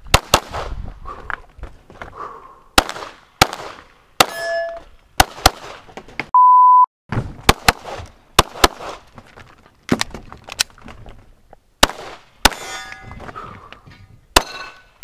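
Rapid pistol fire from a Glock during an IPSC stage, about eighteen shots in quick strings, with steel targets ringing after hits a few times. About halfway through, firing stops for a moment and a short, steady electronic shot-timer beep sounds, then the shooting picks up again.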